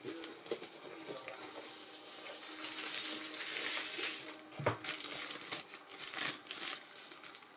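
Packaging wrapper crinkling and rustling as it is pulled out of a case's mesh pocket and handled, with a single sharp knock a little past halfway.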